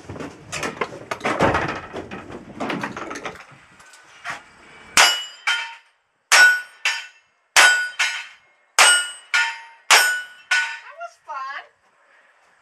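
A string of about a dozen gunshots in quick pairs, starting about five seconds in, aimed at steel plate targets that ring with a metallic clang. Before the shooting, people murmur and shuffle.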